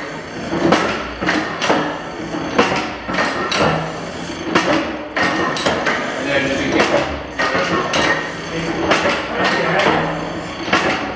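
Vertical single-cylinder gas engine with carrier flame ignition running, a clattering run of knocks about twice a second.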